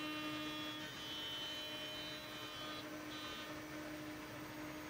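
CNC router spindle whining steadily as its end mill cuts acetal (Delrin) on an edge cleanup pass. The sound is a low steady tone with a cluster of higher tones above it, and the higher tones fade and return a couple of times as the cut goes on.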